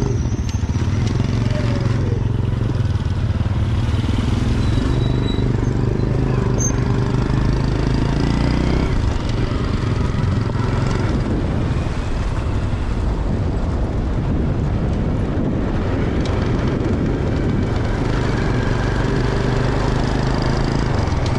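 Small motorbike engine running while riding, with wind rushing over the microphone; the engine's tone changes about nine seconds in.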